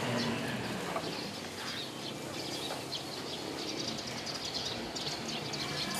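Birds chirping repeatedly in short high calls over a steady background hiss.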